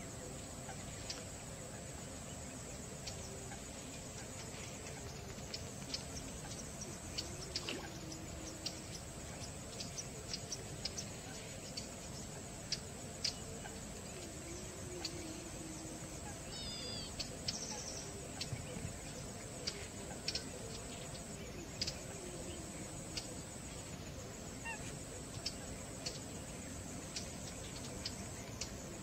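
Wetland ambience with distant waterfowl calling: a few low, wavering honks about a quarter, half and three quarters of the way in, and a short run of high descending bird notes a little past the middle, over many faint clicks.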